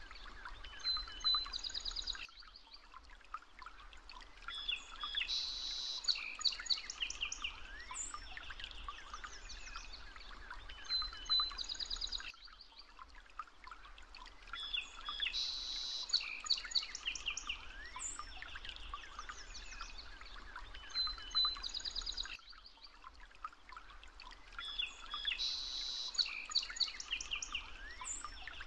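Many birds chirping and trilling over a faint steady hiss: a looped nature-ambience track whose pattern repeats about every ten seconds.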